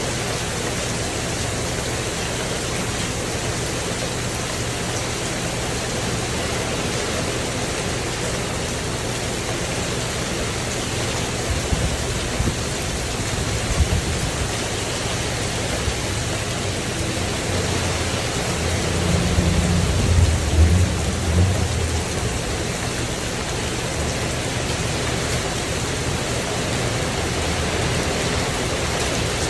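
Steady rain falling on a tin roof, a constant even hiss. Low rumbles of thunder come through twice, a short one about twelve seconds in and a longer, louder one about twenty seconds in.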